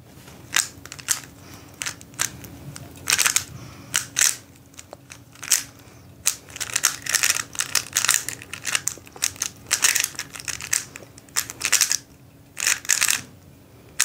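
Stickerless 3x3 speed cube being turned fast by hand: quick runs of plastic clicks and clacks as the layers snap round, sparse at first and then in dense flurries, with a brief pause a little before the end.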